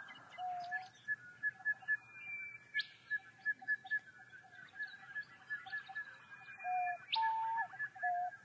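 Birds calling in bushland: a steady run of quick, high chirps and short whistled notes. Twice a long level whistle ends in a sharp upward sweep.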